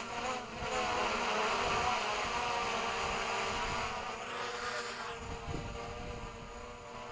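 DJI Mavic Pro quadcopter's propellers whining as it flies in gusty wind, the pitch wavering a little in the first couple of seconds and then holding steady while the sound slowly grows fainter.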